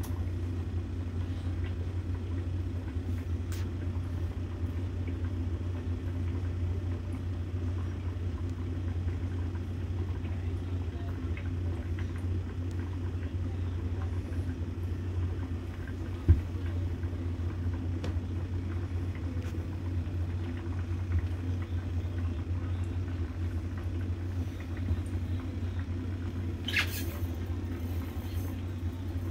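A steady low machine hum, with one sharp knock about halfway through.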